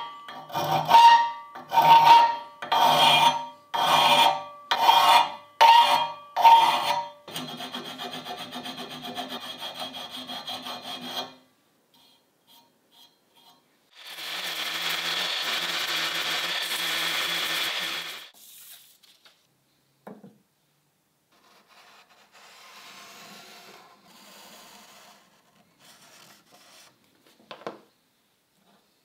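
Hand file strokes on the steel handle tang of an antique cleaver clamped in a vise, about one stroke a second, the metal ringing with each stroke, then a quicker, even rasping for a few seconds. About halfway through, a rotary sanding disc runs against the metal for about four seconds, and faint scraping follows.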